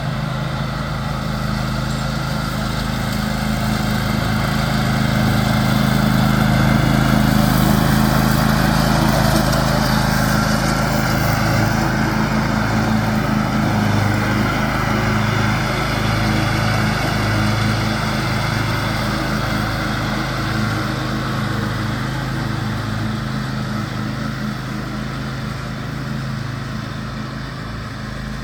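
John Deere X500 riding lawn tractor running steadily while mowing. It grows louder as it comes closer, peaks about seven seconds in, then slowly fades as it moves away.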